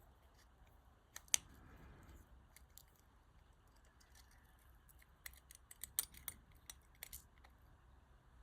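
Small plastic and metal parts of a Ford flip key clicking and tapping as they are handled and fitted together. One sharp click comes about a second and a half in, and a cluster of light clicks follows about five seconds in.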